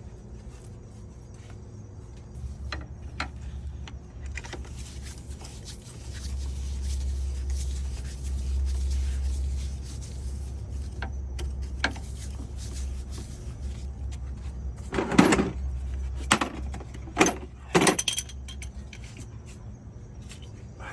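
Metal hand tools clinking and knocking as a bolt is run in with a socket and extension, with a cluster of louder knocks about three quarters of the way through, over a steady low rumble.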